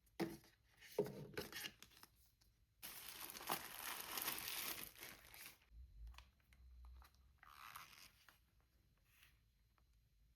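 Packaging being opened by hand: a few rustles and clicks, then a tearing sound that lasts about three seconds, and more crinkling near the end.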